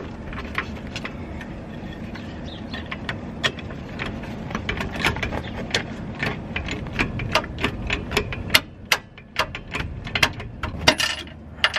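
A run of sharp, irregular metallic clicks and clanks, several a second, from hand tools working on a car's rear suspension during a coilover install.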